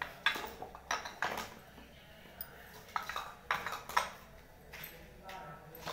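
Metal kitchen utensils clinking and clattering, a string of sharp knocks with a short ring after each.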